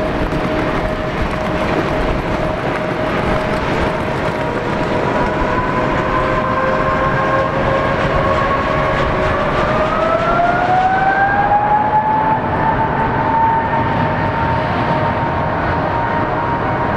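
Pratt & Whitney PW4074 turbofans of a Boeing 777-200 spooling up for the takeoff roll: a steady whine over a broad rumble, with the pitch rising about nine to twelve seconds in and then holding at a higher whine as the engines reach takeoff power.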